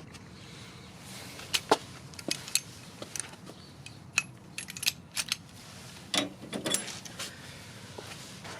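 Small metal parts and tools clinking and rattling while being handled, a dozen or so sharp clicks in a few bunches, some with a brief metallic ring.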